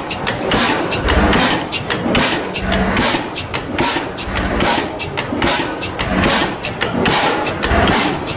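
Large old medium-compression (hot-bulb type) stationary oil engine running: a fast even clatter from its valve gear, with occasional deeper thuds. At this load it needs a flame heating its ignition chamber to keep firing.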